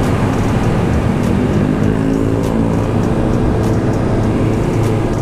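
Kawasaki Ninja ZX-25R's 250 cc inline-four engine running steadily while the bike is ridden, with a strong wind-and-road rush over it.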